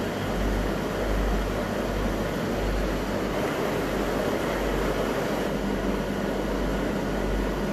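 Steady mechanical hum with an even rushing hiss from aquarium pumps and filtration.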